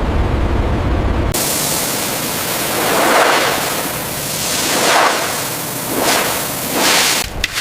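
A low rumbling noise that cuts off suddenly about a second in, giving way to a bright hiss with four swelling whooshes, one every second or two.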